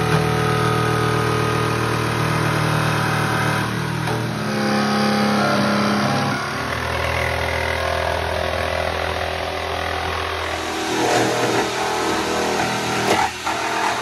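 Corded electric jigsaw running steadily as it saws through a refrigerator's metal cabinet and foam insulation. Its motor note shifts a few times as the load changes during the cut.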